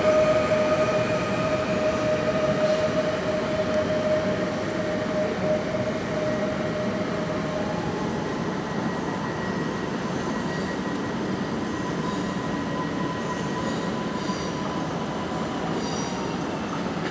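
Pesa Elf electric multiple unit pulling out of the station and rolling away. Its running noise fades steadily, and a steady whine dies out about seven or eight seconds in. A fainter high steady tone and station rumble carry on after.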